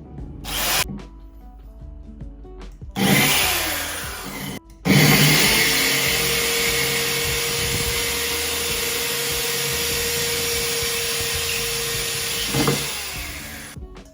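Drill with a diamond bit grinding into a wetted ceramic pot to cut a drainage hole: a brief burst near the start, a second short run about three seconds in, then one long continuous grind with a steady whine from about five seconds in, stopping just before the end.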